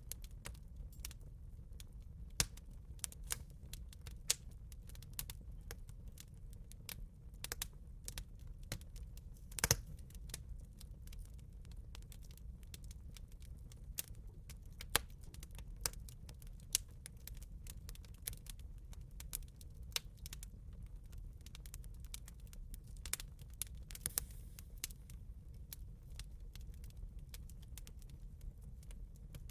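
Campfire crackling: irregular sharp snaps and pops over a low steady rumble of the fire, with louder pops about ten seconds in and again near twenty-four seconds.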